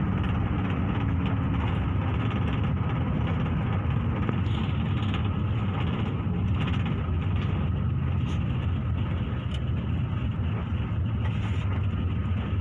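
Bus engine and road noise as a steady low rumble, heard from inside the driver's cab while the bus drives.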